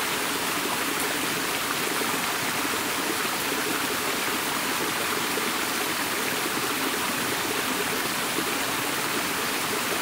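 A small rainforest creek running over rocks, a steady, unbroken rush of water.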